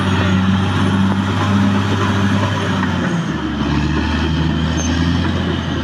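Caterpillar D6R XL bulldozer's diesel engine running steadily, its low hum dropping to a lower pitch about three seconds in as the engine speed falls.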